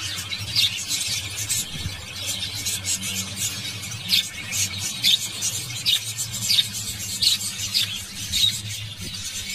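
Mixed flock of budgerigars and cockatiels chattering: constant fast high twittering with short squeaky chirps standing out every second or so.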